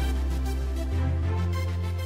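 Instrumental section of a song with no vocals: deep held bass notes that change pitch about a second in, under a beat of regular hi-hat-like ticks.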